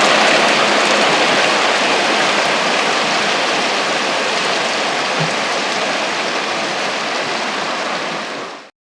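Hail falling: a dense, steady hiss of hailstones striking surfaces, easing slightly and then cutting off suddenly near the end.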